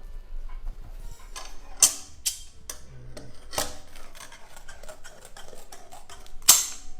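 A run of clicks and taps from handling kitchen tools and sugar candy, with two loud sharp knocks, about two seconds in and near the end.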